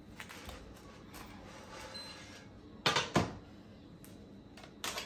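Two sharp knocks close together about three seconds in, and a shorter one near the end: a non-stick frying pan being set back down on a glass-ceramic hob after a crêpe has been slid off it.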